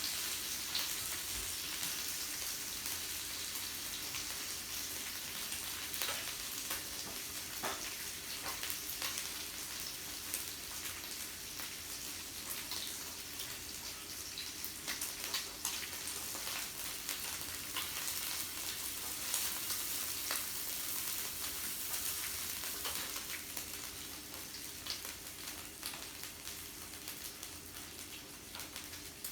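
Meat sizzling on a yakiniku grill: a steady high hiss with frequent small crackles and pops, easing off slightly near the end.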